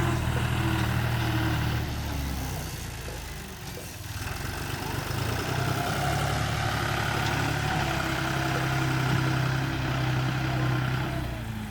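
Bulldozer's diesel engine running steadily, easing off about two seconds in and picking up again a couple of seconds later, then dropping back near the end.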